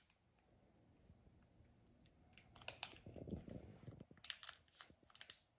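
Faint crinkling and crackling of a foil Pokémon booster pack wrapper being worked open by hand. It starts about two seconds in as a string of small, irregular crackles.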